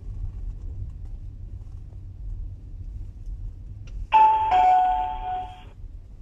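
Electronic two-tone 'ding-dong' chime, a higher tone dropping to a lower one and lasting about a second and a half, about four seconds in, from the driving-test scoring unit in the car. Under it, the low steady hum of the car's engine and road noise inside the cabin.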